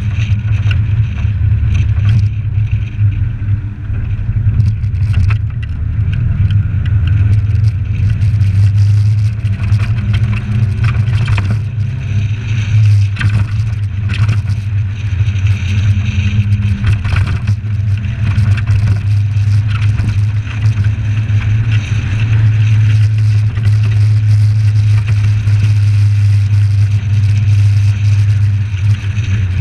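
Suzuki Samurai's engine running under way, a steady low drone that shifts slightly in pitch with speed, mixed with road noise. It is heard muffled through a GoPro's sealed case on the bonnet, with scattered clicks.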